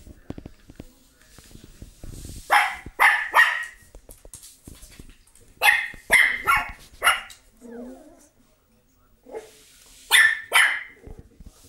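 Small Griffon Belge dogs barking in three bursts: three quick barks, then four more a couple of seconds later, then two near the end.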